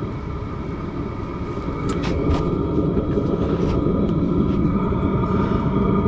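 Chinese diesel parking heater running at its first start-up, heard at the exhaust outlet: a steady rumbling rush with a fan whine on top, growing slightly louder. Combustion is under way.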